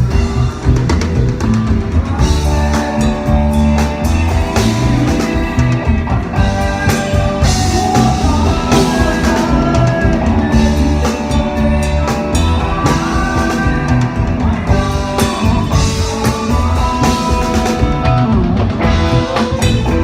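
Isan phin, the Thai plucked lute, playing a solo melody with bent notes over a drum kit and bass keeping a steady beat.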